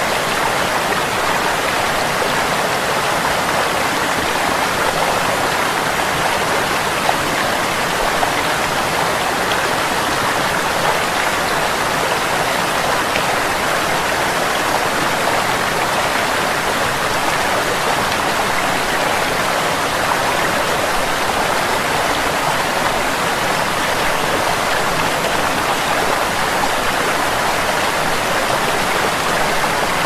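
Creek water cascading over rock ledges below a small waterfall: a steady, unbroken rush of white water.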